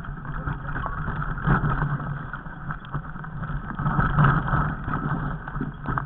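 Rumbling handling and wind noise on a handheld camera's microphone as it is carried over rocky ground, with a few scattered knocks and crunches.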